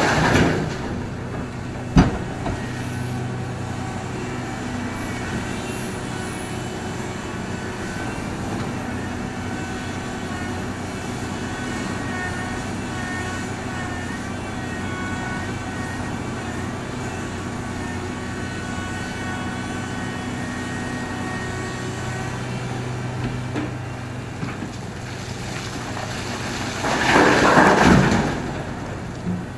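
Heavy diesel mining machinery running steadily. A sharp knock comes about two seconds in, and a loud rushing burst of noise comes near the end.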